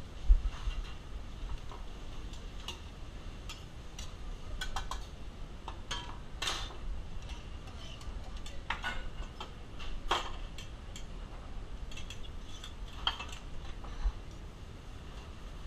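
Kitchen work: irregular light clicks, knocks and clinks of utensils and cookware, with a sharper knock right at the start, over a low rumble.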